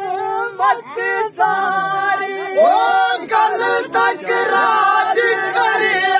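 Men singing a Dogri folk song without instruments. The voices hold long notes and slide between them.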